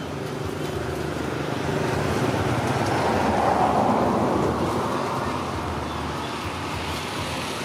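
Road traffic: a vehicle's rumble that swells, peaks about halfway through, then fades as it passes.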